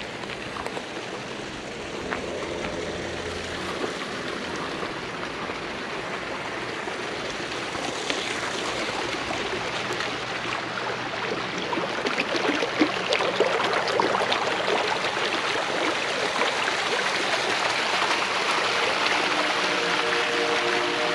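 Small rocky creek splashing and gurgling over stones, growing steadily louder as it nears a little cascade.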